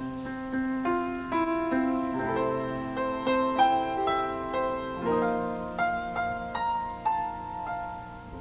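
Piano playing a slow, gentle instrumental passage of struck, held chords: an interlude between a sung verse and the song's refrain.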